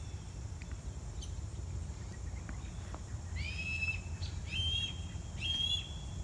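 Young red-tailed hawk crying from the trees: three calls about a second apart, each rising and then holding level, starting a little past halfway. It is a fledgling's begging call for its parents, who have left it to fend for itself.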